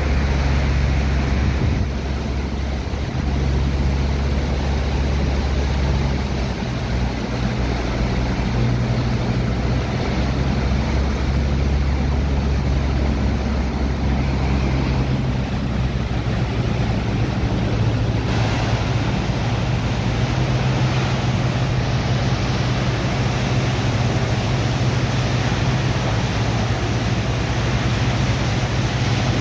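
Steady low drone of pump engines running, overlaid with the hiss and splash of water jets from hoses blasting sand into a slurry in a barge hold for suction unloading. The engine note shifts partway through.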